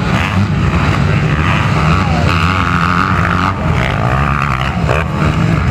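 Motocross dirt bike engines running steadily as the bikes race around the track.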